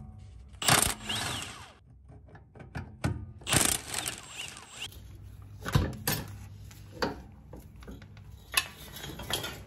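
Hand tools working the seized rear sway bar bracket bolts on a Nissan 350Z: two stretches of rapid metal-on-metal wrenching, each about a second long, then a handful of separate metallic clicks and clinks.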